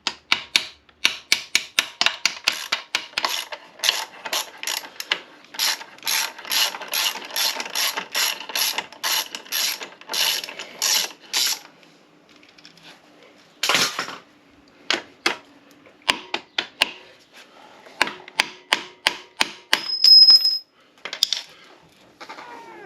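Ratchet wrench clicking in a steady run of quick strokes as a motorcycle engine-mount bolt is worked, then slowing to scattered clicks after about twelve seconds. A brief high squeak comes near the end.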